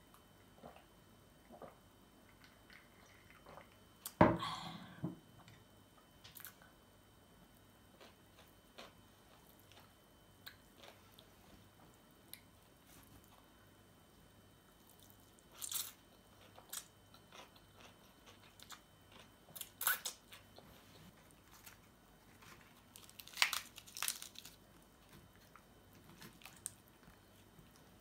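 Close-up eating sounds: scattered crunching, biting and chewing of crisp food such as fried chicken and raw vegetables, in small clusters with quiet between. A sharp, loud knock about four seconds in is the loudest sound.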